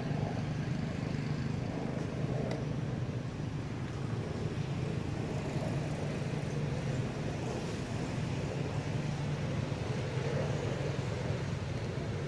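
Steady low mechanical hum, like a motor vehicle's engine running, with a faint click about two and a half seconds in.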